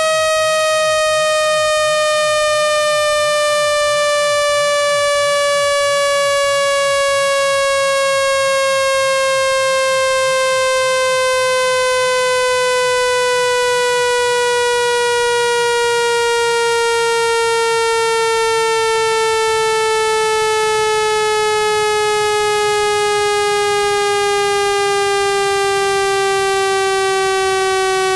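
Synthesized buzzy test tone, rich in overtones, sliding slowly and steadily down in pitch: a speaker-cleaning sweep played at full volume to vibrate water and dust out of a phone speaker grill.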